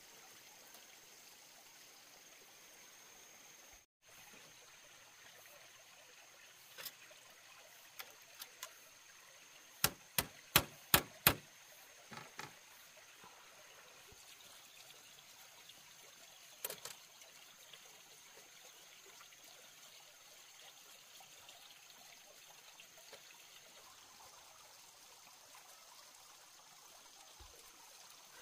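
Steady faint trickle of running water, broken about ten seconds in by a quick run of five sharp knocks, with a few lighter knocks and clicks before and after.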